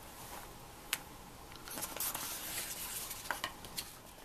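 A page of a thin picture book being turned by hand: a soft paper rustle about two seconds in, with a light tick before it and a few small ticks after it.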